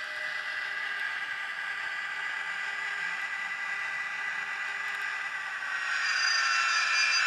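N gauge Graham Farish Class 70 model's DCC sound decoder (CT Elektronik SL76 with a YouChoos soundtrack) playing the Class 70 diesel engine sound through a tiny microcube speaker: a steady engine note with a whine. About six seconds in it grows louder, with a higher whistling whine that slowly falls in pitch.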